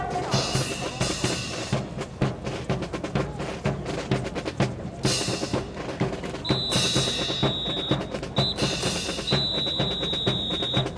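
Marching drum cadence: snare and bass drum beating a steady, busy rhythm with rolls. A high steady tone sounds twice over it in the second half.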